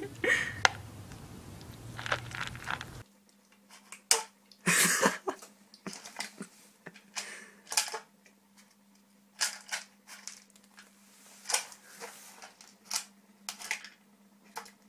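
Kitten eating dry kibble from a plastic bowl: irregular crunches and clicks over a faint steady hum.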